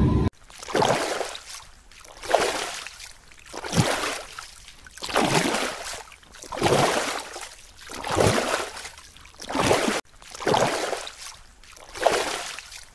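Floodwater sloshing in a steady rhythm, one surge about every second and a half, like water washing against a boat or vehicle moving through it.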